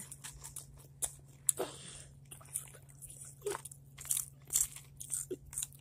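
Hot chips crunching close to the microphone as they are bitten and chewed, in irregular crunches a second or so apart. A steady low hum runs underneath.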